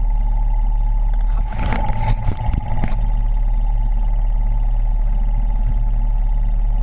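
Polaris RZR side-by-side engine running steadily under way, heard from inside the open cab as a constant low drone with a steady whine. About a second and a half in, a short run of irregular clattering knocks cuts through for roughly a second and a half.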